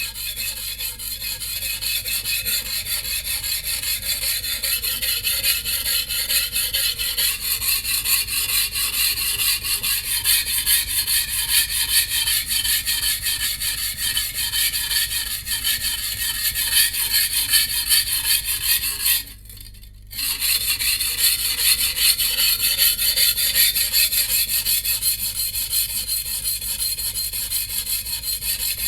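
Steel blade of a Shun VG10 Chinese cleaver being stroked rapidly back and forth on a wet whetstone, a continuous gritty rasping. The strokes stop for about a second two-thirds of the way through, then carry on.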